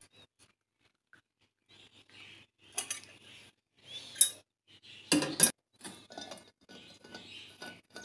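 Stainless steel teapot and thermos handled on a kitchen counter: scattered sharp metallic clinks and clatters after a quiet start, the loudest about five seconds in, as the teapot is set down and the steel lid is fitted onto the thermos.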